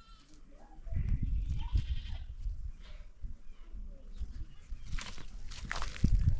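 Goats bleating with short, wavering calls. A loud low rumbling noise starts about a second in, and a few sharp clicks come near the end.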